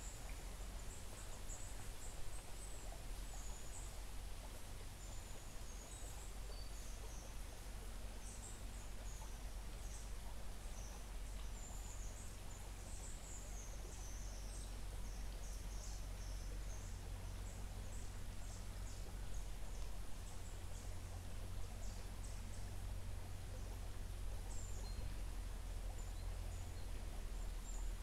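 Small birds chirping and twittering in short, thin, high calls, busiest in the middle, over the faint steady murmur of a gently flowing stream and a low steady rumble.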